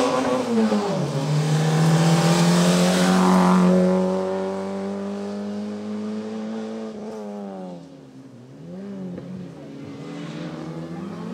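Rally car engine at high revs, with a gear change about a second in, pulling hard and then fading as the car drives away. Near the end the revs rise and fall quickly through throttle lifts and shifts into a bend.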